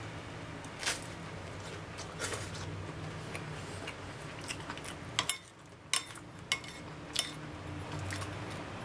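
Metal spoon clinking and scraping against a ceramic bowl of half-boiled eggs in soy sauce, about six sharp clinks spread through, over a steady low hum.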